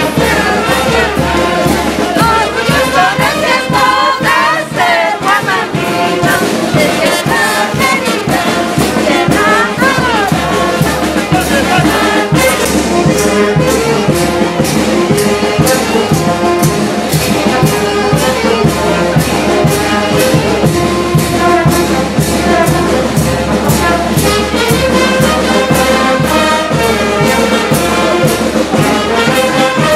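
Brass band playing a festive dance tune in the street, with brass leading over a steady drum beat.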